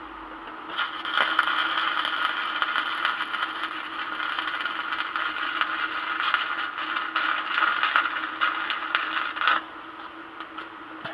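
Electric arc welding: the arc crackles steadily through one bead of about nine seconds, starting about a second in and cutting off abruptly near the end. A steady low hum runs underneath.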